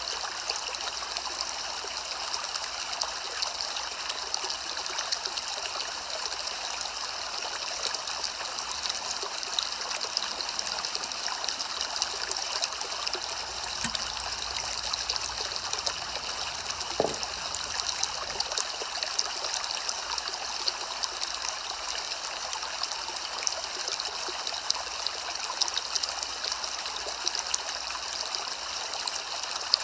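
Steady soft rain: an even, unbroken hiss of falling rain with no single drops standing out.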